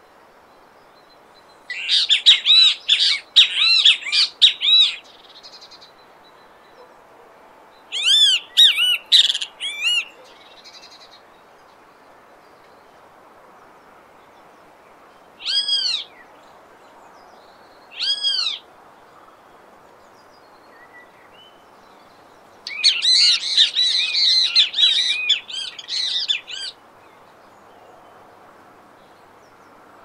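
Great kiskadee calling: three runs of rapid repeated notes, each a few seconds long, with two single separate notes between the second and third runs.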